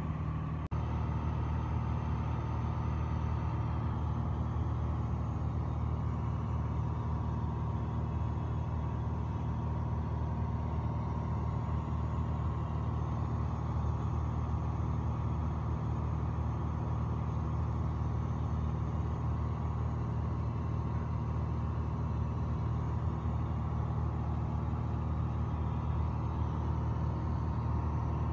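Piper Dakota's six-cylinder Lycoming engine and propeller droning steadily in cruise, heard from inside the cabin, with a brief dip less than a second in.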